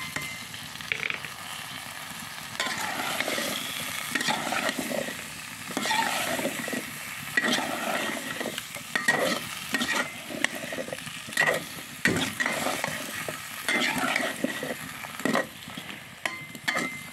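A metal spatula scraping and stirring chopped hyacinth beans and potatoes around a metal pot, over a steady sizzle of the hot spice paste as the vegetables are sautéed in the masala. The spatula strokes come in irregular clusters, busier in the second half.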